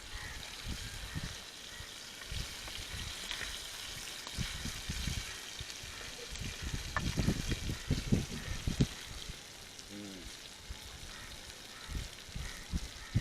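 Food frying in oil, a steady sizzling hiss, with low bumps and rumbling about seven to nine seconds in.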